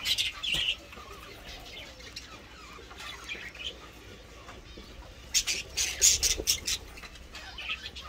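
Budgerigars chirping and chattering, with a burst of rapid wing flapping about five and a half seconds in.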